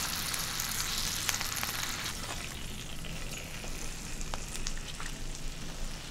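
Pork drippings and butter sizzling in a hot cast iron skillet: a steady hiss with scattered small pops, easing off slightly.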